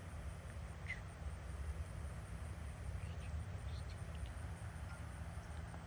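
Outdoor night ambience: a steady low hum under a faint hiss, with a few faint, short, high chirps, the clearest about a second in.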